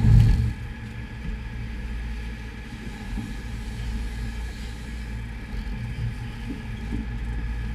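Sportfishing boat's inboard engines running with a steady low rumble, heard from the open cockpit. There is one brief loud thump right at the start.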